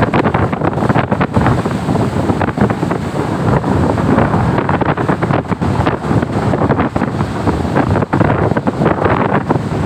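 Strong wind buffeting the microphone in constant rough crackles, over the rush of heavy surf.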